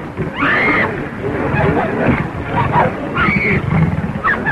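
Big cat snarling and roaring, with two shrill arching cries about half a second and three seconds in, all over the hiss of an old film soundtrack.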